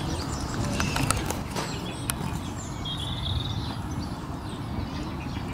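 Outdoor ambience dominated by wind rumbling on the microphone, with a few sharp clicks about one to two seconds in and a short bird chirp about halfway through.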